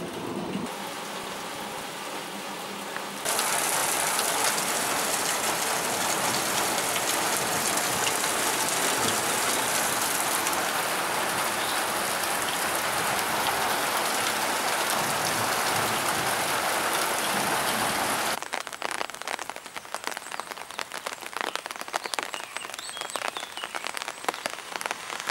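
Heavy downpour of rain striking wet muddy ground and puddles, a dense steady hiss that grows louder about three seconds in. For the last seven seconds or so the sound thins into many separate, sharp drop hits.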